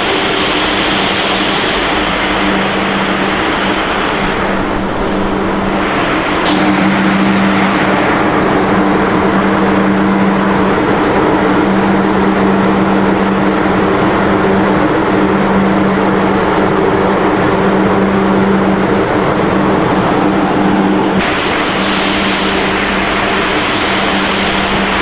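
Snack pellet production line machinery running: a loud, steady mechanical noise over a constant motor hum. Its tone shifts about six seconds in and again near the end.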